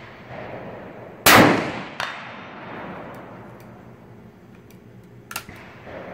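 A single shot from a Tikka T3x Lite rifle in .223 Remington, a sharp crack with an echo that dies away over a few seconds. Fainter sharp clicks follow twice.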